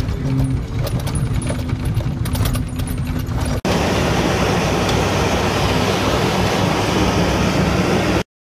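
New Holland 855 round baler and the tractor pulling it running steadily, with a low hum and many small ticks, heard from inside a vehicle cab. About three and a half seconds in, the sound cuts to the baler heard close beside it, louder, with a dense rushing noise over the hum, and then stops abruptly near the end.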